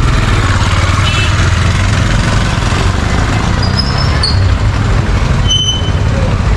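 Busy street traffic: a steady, loud rumble of engines running, with a few short high chirps in the middle and a sharp click near the end.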